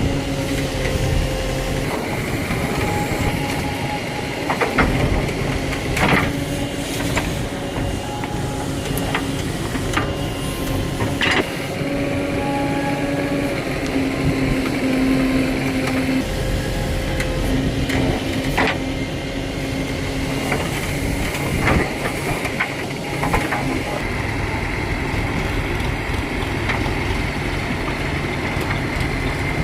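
Tata Hitachi Shinrai Prime backhoe loader running while it works, its diesel engine running steadily with a whine that comes and goes as the hydraulics work. Several sharp knocks stand out along the way.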